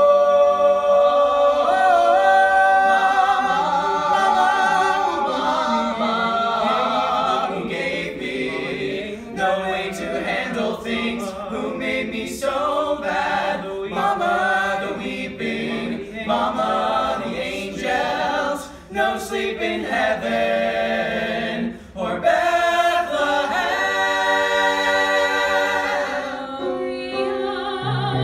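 A group of five young male voices singing a musical theatre number together in harmony, with no clear instrument heard. Near the end it cuts to a woman singing solo.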